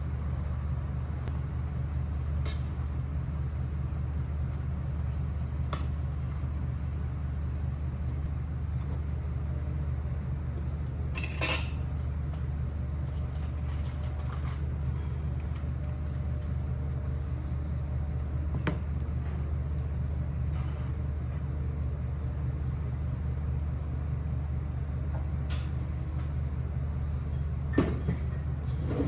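Steady low hum with a few scattered clicks and knocks, like dishes and cupboard doors being handled; the loudest knock comes about eleven seconds in.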